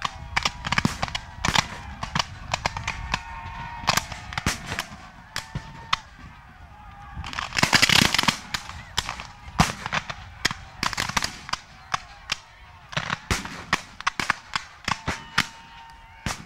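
Reenactors' black-powder muskets firing blanks: scattered, irregular shots, with a ragged volley of many rounds about eight seconds in.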